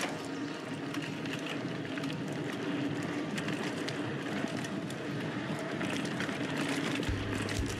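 Mountain bike riding down a dirt forest trail: tyres rolling with steady noise, and the bike rattling and knocking irregularly over bumps.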